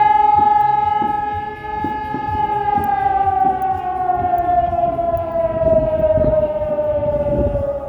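Civil defense siren sounding one steady high tone, then after about two and a half seconds starting to wind down, its pitch sliding slowly and evenly lower.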